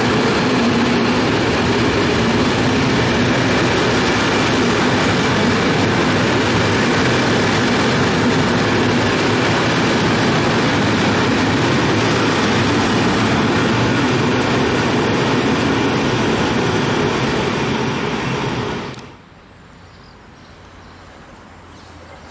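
Freight train of stake flat wagons running past at speed: a loud, steady noise of wagon wheels on rails. It cuts off abruptly about three-quarters of the way through, leaving faint background sound.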